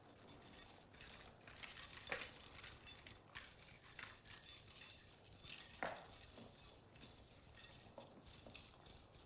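Metal leg irons being unlocked and taken off prisoners' ankles: faint scattered clicks and clinks of shackles and chain, the sharpest about two seconds in and again near six seconds.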